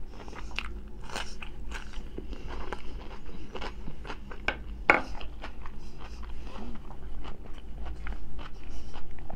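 Close-miked chewing and crunching of food, bites of crisp raw cucumber among them: irregular crunches with wet chewing, one crunch louder about five seconds in.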